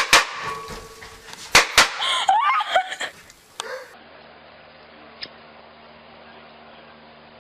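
Firecrackers going off in a room: sharp bangs near the start and twice more at about a second and a half, with voices shouting and laughing in between. After about four seconds only a faint steady hum remains.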